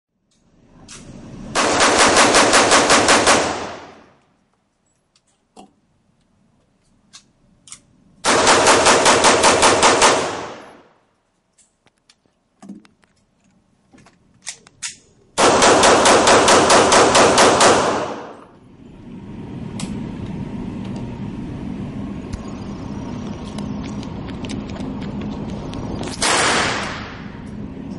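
Automatic gunfire: three long bursts of rapid shots, each lasting about two seconds and trailing an echo, then a short fourth burst near the end. Faint clicks come between the bursts.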